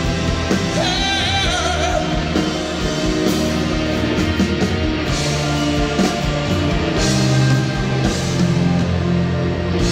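Live rock band music with a singing voice over guitars and drums, the drums marking a steady beat.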